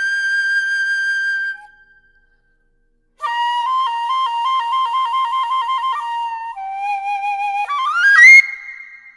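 Sogeum, a small Korean bamboo transverse flute, played solo: a high held note fades out, and after a short pause come fast ornamented alternating notes, a lower sustained note, and a quick run climbing to a high held note near the end.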